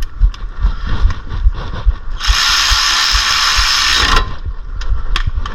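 Ratchet clicking and tools handled on a brake caliper's mounting bolts, with a loud steady hiss of about two seconds in the middle.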